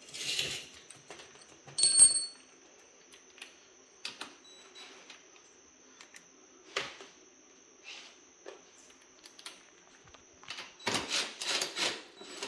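Hand tools and metal exhaust parts clinking and clattering: scattered light knocks, a sharp metallic clink with a brief ring about two seconds in, and a flurry of rapid clicks and rattling near the end.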